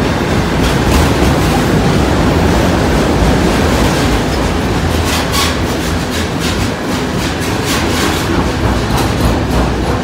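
Freight train cars rolling past close by, a loud steady rumble with the wheels clacking over rail joints.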